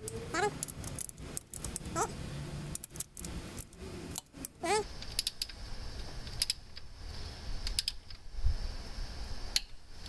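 Torque wrench ratcheting on the head bolts of a Ford 1.9 L cylinder head during the first 44 ft-lb tightening pass: irregular metallic clicks and clinks, with three short rising squeaks in the first half.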